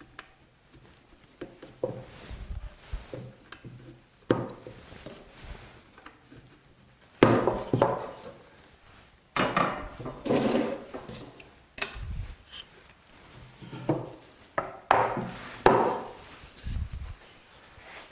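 Wooden stool rails and legs being handled and pushed together on snug dowels during a dry fit: irregular knocks, clunks and scrapes of wood on wood, coming in clusters and loudest in the middle.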